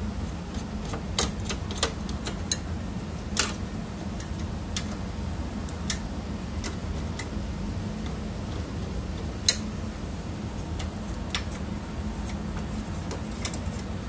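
Scattered, irregular sharp metal clicks and taps as a Phillips screwdriver backs out the spring-loaded screw holding the hard drive cage in an all-in-one PC's metal chassis, over a steady low hum.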